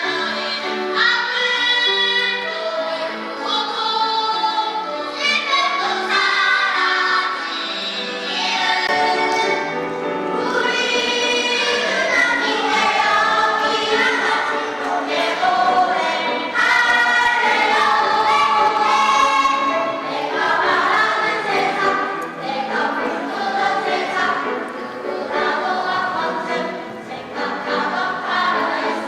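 Children's choir singing with musical accompaniment. A low bass layer comes in about nine seconds in.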